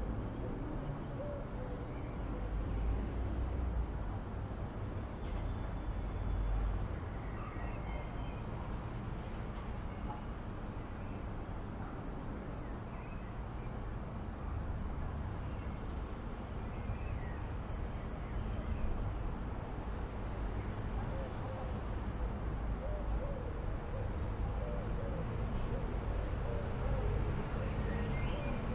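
Outdoor nature ambience of birds calling: a burst of high chirps a few seconds in, scattered short calls through the rest, and lower repeated calls near the end, over a steady low rumble.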